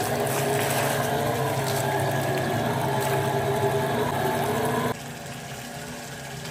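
Water gushing from a solar pump's outlet pipe and splashing over fish pieces in a clay bowl as they are rinsed by hand. About five seconds in it turns quieter, as the stream falls straight into the tank.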